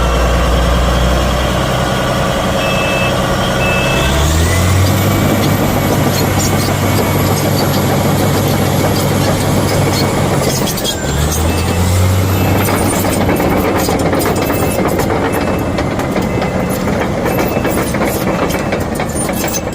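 Bulldozer's diesel engine idling, then revving up about four seconds in with a high whine rising alongside. It eases off briefly near the halfway point and revs up again, with clattering through the later part.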